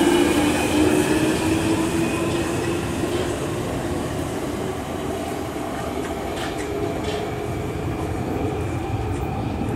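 London Underground 1996 Stock Jubilee line train running along the track at a platform: a steady rumble of wheels on rail, with the traction motor whine fading over the first couple of seconds and a few clicks over rail joints later on.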